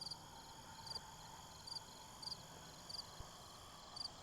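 Insects chirping: short high chirps repeat once or twice a second over a steady high trill.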